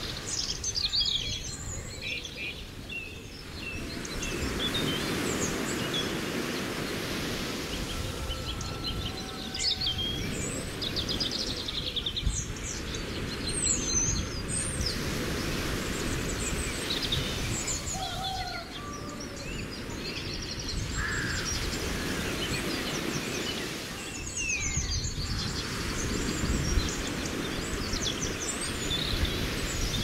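Wild birds chirping and trilling, many short calls overlapping, over a steady low wash of lake water.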